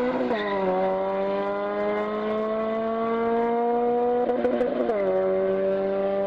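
Honda K20 four-cylinder engine pulling hard at high revs, its pitch climbing steadily in each gear. It drops sharply at two upshifts, one about a third of a second in and one, with a rough stretch, between about four and five seconds in.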